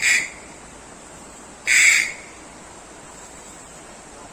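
Abu Cardinal 4 spinning fishing reel giving two short, high squealing sounds, one right at the start and a longer one just under two seconds in.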